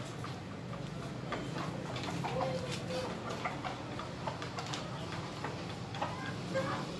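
Caged chickens: irregular light ticks and taps, with a few soft clucks.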